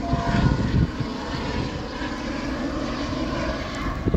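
Steady rumble and hiss of freeway traffic, with a brief knock near the end.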